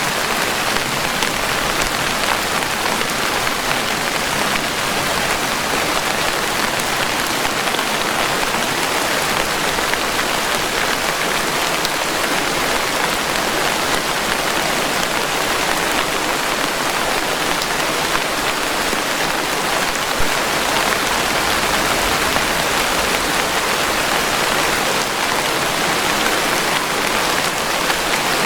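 Steady, even rainfall, a continuous dense hiss of raindrops with no let-up and no thunder.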